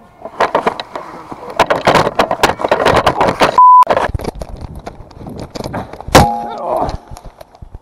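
Running footsteps with rattling kit, a short steady beep about three and a half seconds in, then one loud thud about six seconds in as the runner trips and falls to the ground.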